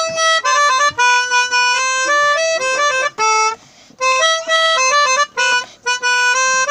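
Pianika (keyboard melodica) playing a simple melody in held reedy notes, with a short break about three and a half seconds in.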